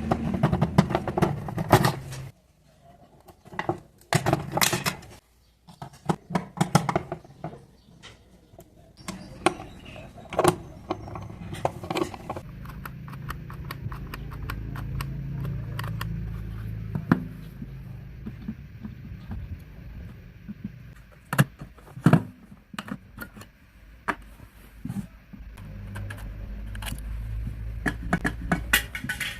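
Irregular sharp clicks and knocks of small hard objects being handled, with a low steady rumble through the middle and again near the end.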